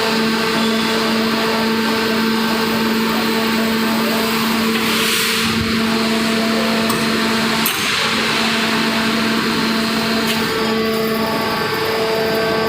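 Y81QF-800 hydraulic metal baler's motor and hydraulic pump running with a steady hum. A short hiss comes about five seconds in, and the hum briefly dips with a click just before eight seconds.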